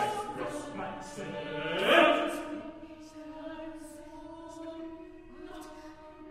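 An eight-voice a cappella ensemble singing contemporary vocal music. Several voices hold long notes at different pitches, broken by short hissing consonant sounds. A swell with a rising glide peaks about two seconds in, then quieter held tones continue.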